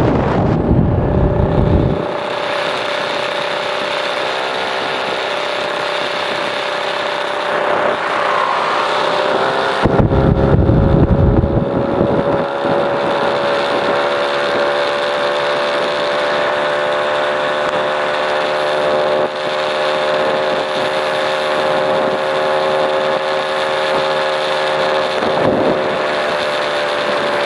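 Kawasaki Ninja 150RR's single-cylinder two-stroke engine running at steady riding revs, heard from the rider's own bike on the move. Wind buffets the microphone during the first two seconds and again about ten seconds in.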